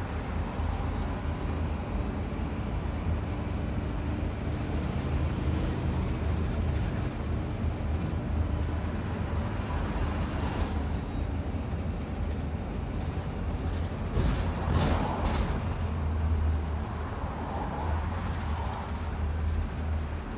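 A bus travelling, its engine and road noise making a steady low rumble. Louder rushing swells come through about ten seconds in and again around fifteen seconds in.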